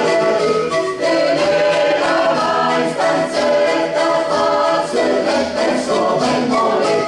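Mixed choir singing a traditional Italian folk song a cappella, several voice parts together in close harmony.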